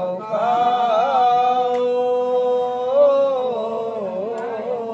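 A voice chanting a prayer in long held notes: one note sustained for about two seconds, then a brief rise and a wavering slide down.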